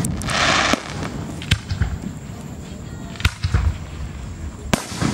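Aerial fireworks shells bursting: four or five sharp bangs, roughly a second apart, with a short burst of hissing crackle near the start.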